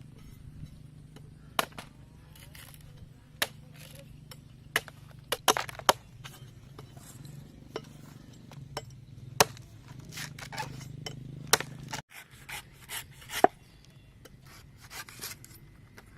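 Irregular sharp knocks, clicks and scrapes, as of wood and tools being handled, over a low steady hum that stops abruptly about twelve seconds in.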